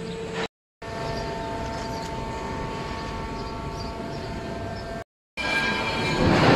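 Steady outdoor vehicle and road noise with a faint steady whine, cut off twice by short dead-silent gaps where clips are spliced. Near the end it comes back louder and rougher.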